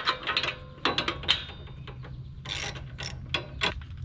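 Socket ratchet wrench clicking and clinking unevenly while a 13/16 in spark plug socket works the spark plug out of a Kawasaki FX691V V-twin engine.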